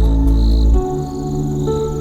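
Slow ambient music with sustained low notes that change about 0.8 s in, layered with autumn insects chirping in short repeated pulses and a steady high trill.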